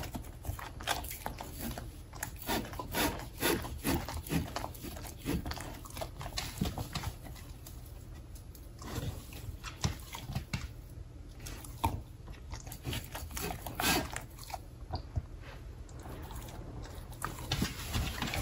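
Samoyed licking and chewing at a plate: a string of irregular wet smacks and clicks.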